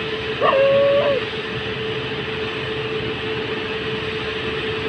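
Steady hum with a constant mid-pitched tone from the standing WAP7 electric locomotive. About half a second in, a dog gives one drawn-out whine, rising at its start and end.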